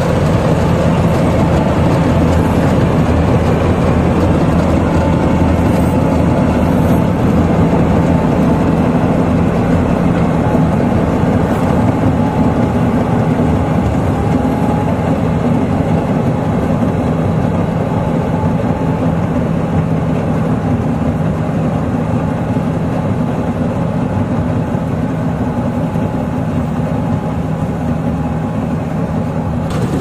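Standard TSC-513 combine harvester running under load while it cuts and threshes rice: a loud, steady drone of its diesel engine and threshing machinery with a constant low hum, getting slightly fainter in the second half as it moves off.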